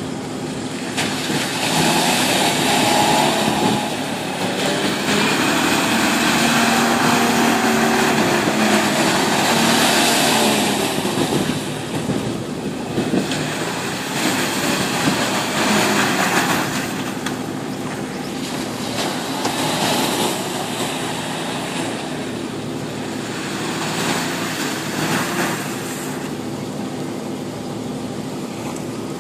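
Toyota Land Cruiser 70-series ('Machito') engine labouring and revving up and down as the 4x4 drives through a muddy pit, with repeated bursts of hissing splash as the tyres throw up mud and water.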